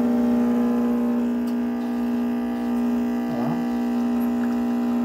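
Vibratory pump of a Philips Saeco Poemia espresso machine running with a steady buzzing hum as it pushes water through the ground coffee to brew espresso.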